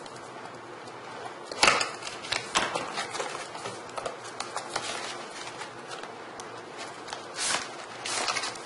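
Cardboard retail box being cut open with a knife and handled: scattered clicks, scrapes and rustles, the sharpest a click about a second and a half in. Near the end, a longer scraping slide of cardboard on cardboard as the inner box comes out of its sleeve.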